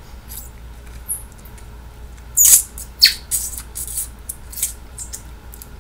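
A person sucking and slurping juice from a lime wedge held to the mouth: a run of short, wet, squeaky sucks, loudest a little under halfway through.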